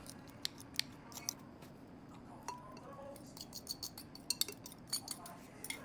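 Faint, irregular clinks and taps of a utensil against the pitcher while dragon fruit is mashed, with a few sharper ticks scattered throughout.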